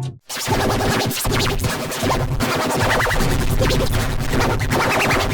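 Loud children's-song music run through an audio effect, dense with crackles; it cuts out for a moment just after the start.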